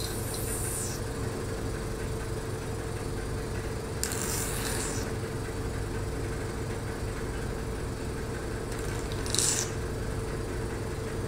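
Hydrodermabrasion facial machine running with its suction and water flow on: a steady low mechanical hum with a constant tone. Short bursts of hiss come at the start, about four seconds in and, loudest, near the end.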